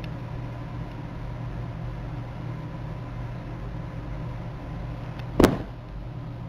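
A steady low hum, with one sharp knock about five seconds in that is the loudest sound.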